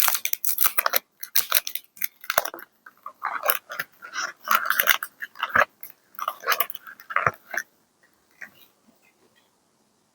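Paper being handled close up: crinkling and rustling in quick crackly bursts, stopping about three-quarters of the way through, with only a few faint ticks after.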